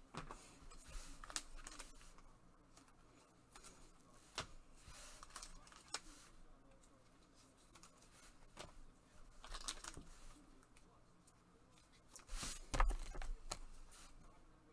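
Faint rustling and scattered clicks of trading cards and foil pack wrappers being handled, with a louder rustle near the end.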